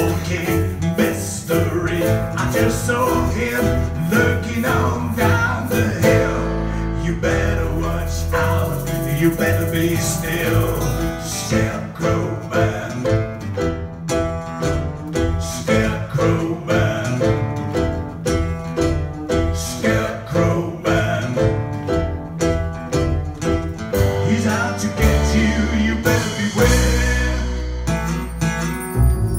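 Blues trio playing live: electric keyboard, strummed acoustic guitar and cajon, with harmonica in the opening seconds.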